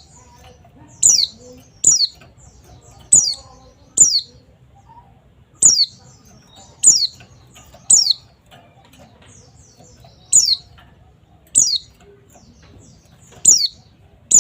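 White-eye (pleci) giving short, sharp downslurred call notes, about one a second with a few coming in quick pairs, over a faint low hum.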